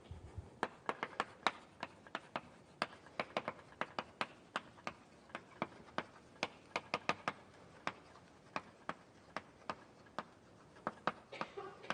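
Writing on a lecture board: an irregular run of sharp taps and clicks, several a second.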